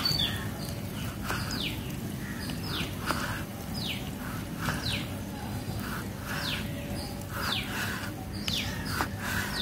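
A bird calling over and over, about once a second, each call a short note sliding down in pitch. A few light taps of a kitchen knife against a plastic cutting board as a tomato is sliced.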